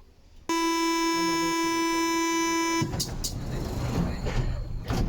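Door-closing warning buzzer of an MP-68 Mexico City Metro train: a steady, high pitched tone lasting about two seconds that cuts off abruptly, followed by the doors sliding shut with a noisy rush and several knocks.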